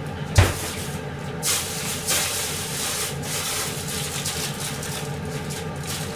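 A single knock about half a second in, then several seconds of uneven crinkly rustling from a plastic bag being handled.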